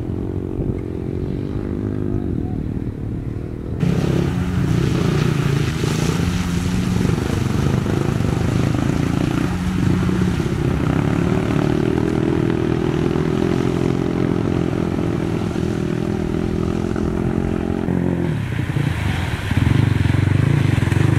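Dirt bike engine running hard, its pitch stepping up and down, as the bike is ridden through shallow river water with spray splashing from the wheels. The engine gets louder about four seconds in and again near the end.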